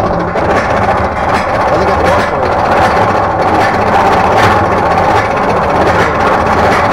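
Arrow hypercoaster lift hill: the chain drive and anti-rollback ratchet clattering steadily as the train is hauled up the climb.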